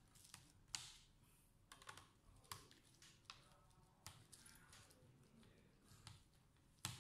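Faint, irregular clicks and taps of a screwdriver working a small screw at the hinge corner of a Dell Inspiron 3511 laptop's bottom cover, with a sharper click near the end.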